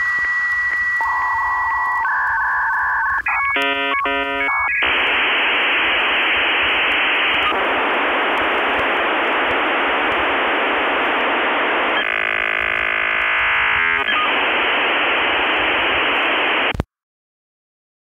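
Dial-up modem handshake sound: a steady high answer tone, warbling exchange tones and a burst of stacked probing tones, then a long hiss, all with a narrow telephone-line sound, cutting off abruptly into silence near the end.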